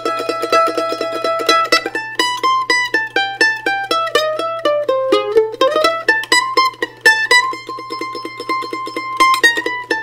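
Solo mandolin playing a tune in A minor, the melody's held notes picked rapidly and evenly in tremolo, stepping down through the middle and climbing back up.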